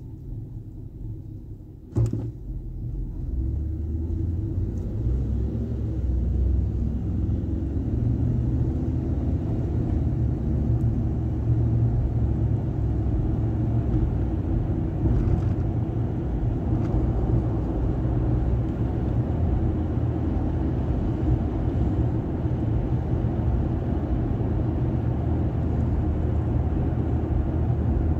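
Vehicle engine and road noise heard from inside the cabin: a low rumble that rises over the first few seconds as the vehicle pulls away from a stop, then holds steady while it drives. A single sharp knock sounds about two seconds in.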